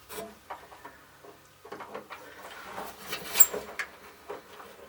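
Light switch wiring and a small connector being handled and fitted, making scattered small clicks and light rattles, with one sharper click about three and a half seconds in.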